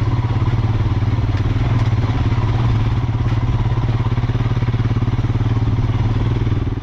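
Royal Enfield Himalayan's single-cylinder engine running steadily as the motorcycle picks its way over a rocky off-road trail.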